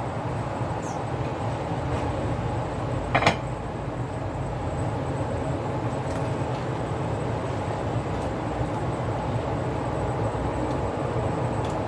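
Steady low rumble of a pot of water boiling on the stove, with one sharp knock about three seconds in.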